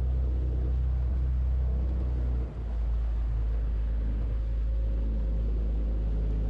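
Boat's outboard motor running steadily under way, a loud low drone that dips briefly about two and a half seconds in.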